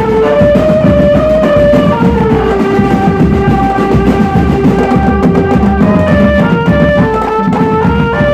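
A drum band playing: a melody of held notes moving step by step over steady, dense drumming.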